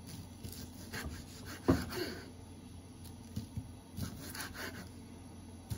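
Short rubbing or scraping strokes in small groups, with one sharp knock a little under two seconds in.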